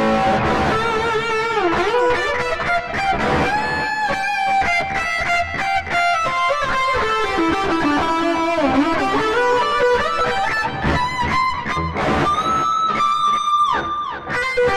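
Electric guitar playing a lead solo through a Korg AX3000G multi-effects processor on a distorted, volume-boosted lead preset with analog delay: fast runs with string bends, a long vibrato note near the end and a falling slide. The delay feedback is set to 5, which the player judges still too little.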